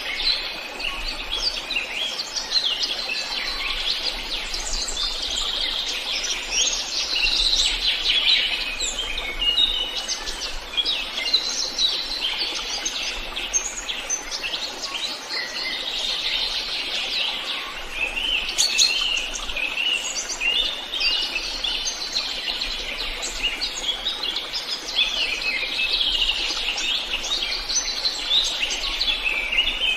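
Many songbirds singing and chirping together: a dense, unbroken chorus of overlapping high chirps and trills.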